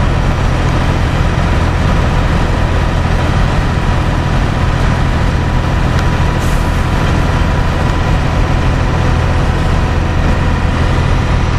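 Heavy truck's diesel engine idling, a steady low rumble that does not change.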